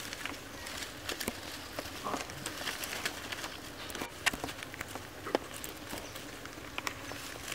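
Rustling of leaves and twigs in forest undergrowth, with many small sharp clicks and snaps scattered throughout.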